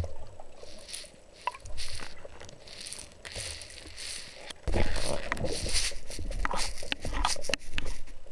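Underwater rushing water noise coming in swells, then from about five seconds in louder rustling with many sharp clicks and knocks as a freshly speared sea bass is hauled in on the speargun's shaft and line.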